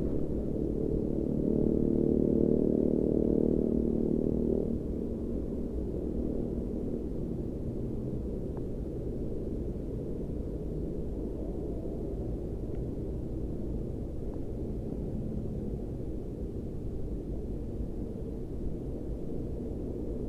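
A steady low rumble. For the first four seconds or so a louder, steady-pitched hum sits over it, then fades away.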